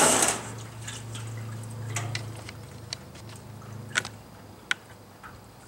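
Handling noise from a bullet heater's fan assembly being set back into its sheet-metal housing: a brief scrape at the start, then a few sharp, light metallic clicks and taps.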